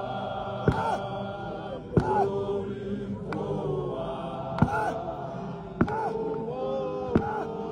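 Zion Christian Church mokhukhu: a men's group chanting in unison, punctuated by a heavy stamp on the ground about every second and a quarter, the stamps being the loudest sounds.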